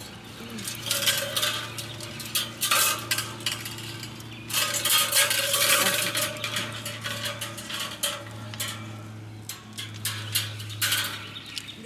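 A round steel wire grill rack being lowered and shifted into place with metal rods over a barbacoa pit: irregular metallic clinks, rattles and scrapes of wire against rods, the pot and the brick rim.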